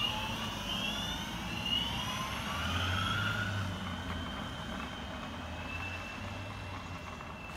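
Boosted Board V2 electric skateboard's belt-driven motors whining as the board accelerates away. The pitch rises over the first few seconds, then holds steady at cruising speed.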